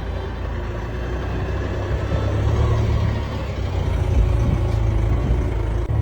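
Vehicle engine running under load as it drives up a slope, a low steady drone that grows louder about two seconds in.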